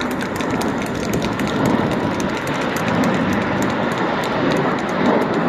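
Jet engines of a formation of BAE Hawk T1 jets flying overhead: a steady, loud roar with fine crackling through it.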